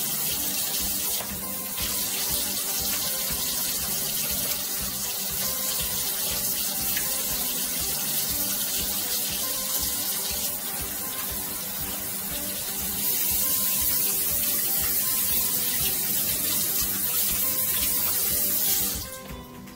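Kitchen faucet running into the sink while hands are washed under the stream; the water shuts off about a second before the end.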